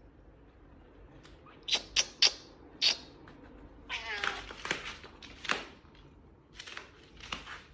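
A cat gives one short meow that falls in pitch, about four seconds in. It comes after a few sharp, loud clicks or taps.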